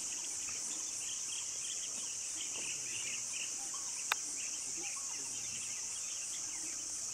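Steady high-pitched insect chorus of crickets or cicadas, with scattered chirps beneath it and a single sharp click about four seconds in.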